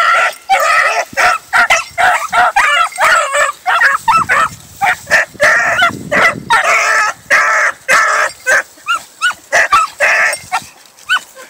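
A pack of beagles, a female with young pups, giving tongue on a trail: rapid, overlapping short yelps and bays, several a second, from more than one dog.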